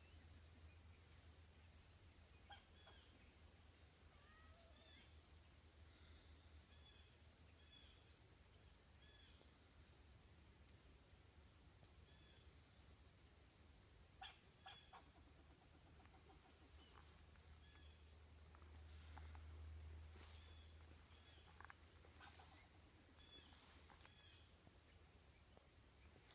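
A bird chirping in a tree: short, scattered high chirps, some in quick pairs, over a steady high hiss.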